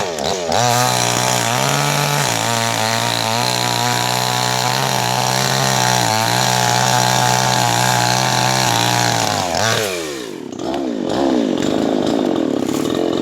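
Chainsaw running at high speed with a steady engine note. About ten seconds in the pitch falls sharply as it comes off throttle, and it runs on at a lower, rougher speed.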